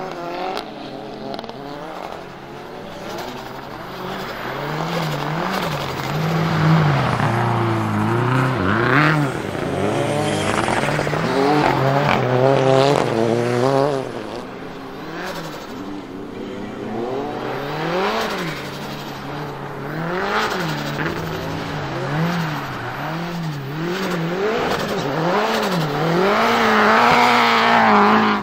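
Subaru Impreza WRX STI rally car's turbocharged EJ20 Spec C flat-four, with equal-length headers and a twin-scroll turbo, revving up and down again and again through quick gear changes on the sequential gearbox as the car slides through the corners. It quietens for a while partway through and is loudest near the end, as the car comes close.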